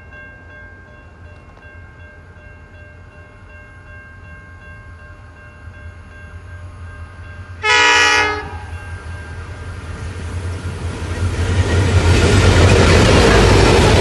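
A diesel-hauled grain train approaching, led by SSR locomotive CLF1: one short horn blast about halfway through, then the locomotives' engines and wheels on the rails grow steadily louder as the lead engines pass close by.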